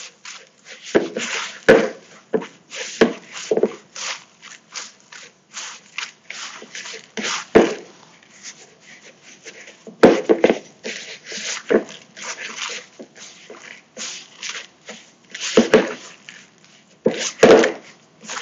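Hands kneading and squeezing a wet, dough-like crumble mixture of flour, sugar, coconut and oats in a large bowl. It makes irregular short rubbing and squeezing noises, with a few sharper, louder ones.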